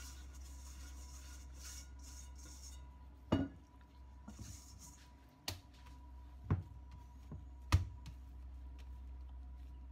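Hand scraping soft bread dough out of a stainless steel bowl, a rustling scrape for about three seconds, followed by four sharp knocks spread over the next few seconds as the bowl and dough are set down and the dough is handled on a plastic cutting board.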